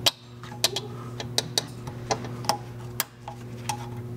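Irregular sharp metallic clicks and taps as a flat-head screwdriver pushes a steel snap ring, bit by bit, into its groove around the pressed-in ball joint in a BMW E39 rear wheel carrier. A steady low hum runs underneath.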